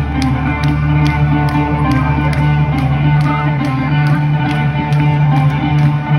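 Live rock band playing loudly through a concert PA: electric guitar over a steady drum beat, about two hits a second.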